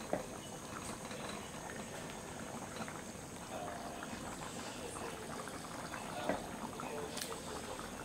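Coconut milk with jackfruit boiling vigorously in an aluminium pan: a steady bubbling with many small pops.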